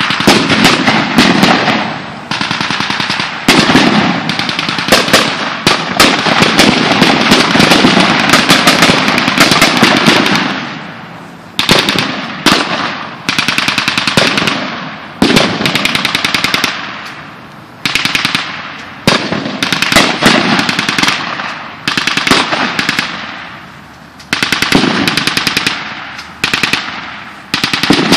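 Blank-firing gunfire in a mock battle: rapid automatic fire runs almost unbroken for about ten seconds, then comes in short bursts every second or two, each trailing off in an echo.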